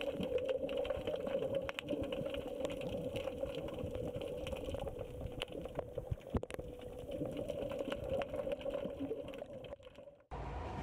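Underwater sound picked up by a camera while snorkelling: a steady muffled hum with scattered crackles and clicks, which breaks off about ten seconds in. Right after, the steady rumble of a train running starts.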